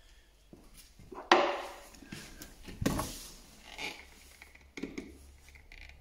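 Handling noise from working a light-switch insert in a flush-mounted wall box: a sharp knock with a short scrape just over a second in, another knock about halfway, then lighter clicks and taps.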